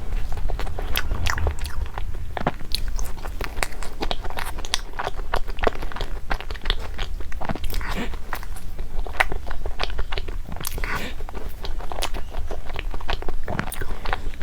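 Close-up crunching and chewing of food: a dense, irregular run of crisp clicks over a low steady hum.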